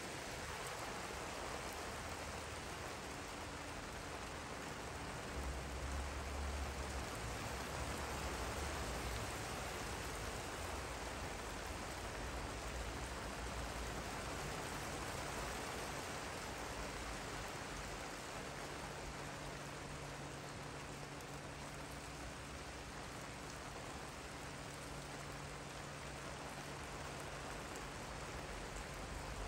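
Steady rain falling on a garden and a wet wooden deck.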